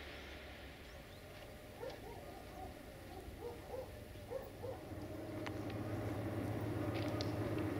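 Approaching diesel locomotive, its engine sound growing steadily louder from about five seconds in. Before that, a series of short repeated animal calls.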